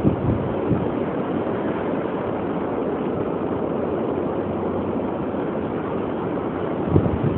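Hurricane wind: a steady rushing noise, with one low thump of a gust hitting the microphone about seven seconds in.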